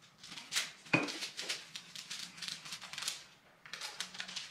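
Baking paper crinkling and rustling in quick irregular crackles as a rolling pin and hands work a sheet of air-drying clay on it and lift it off the paper, with a sharp knock about a second in.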